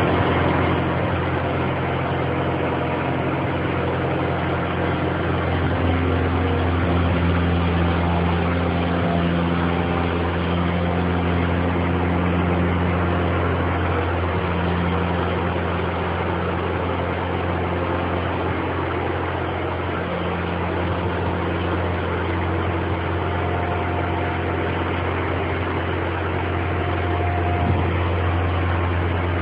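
Engine of a Baker 3665D band sawmill running steadily at a constant speed, with a deep even hum and slight shifts in pitch now and then.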